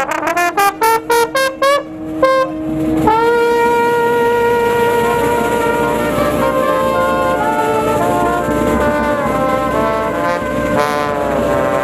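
A live brass band of trumpet, trombone, saxophones and a baritone horn playing. It opens with a run of short stabbed notes over a held low note, and about three seconds in it swells into a long held chord with a melody moving over it.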